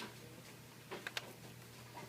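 A few light, sharp clicks of a small screwdriver working out the little screws that hold a laptop motherboard, over a faint steady low hum.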